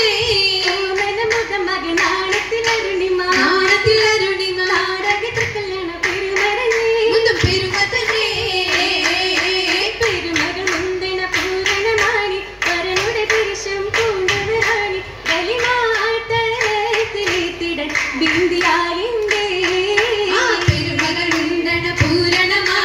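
Oppana song: voices singing a Mappila folk melody over rhythmic group handclapping, the claps falling in a steady pattern throughout.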